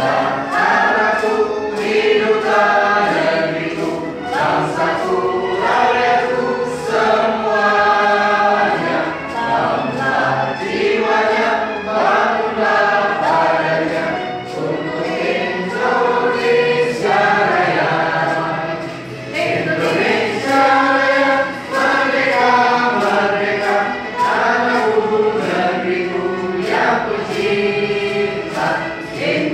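A group of people singing a song together in unison, in steady sung phrases.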